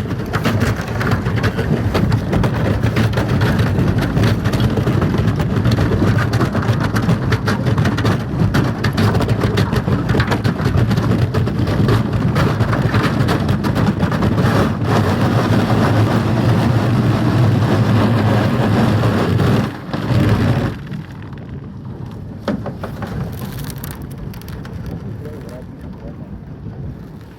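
A vehicle driving, with a steady low engine drone under a loud rushing noise. The sound drops off sharply about 21 seconds in.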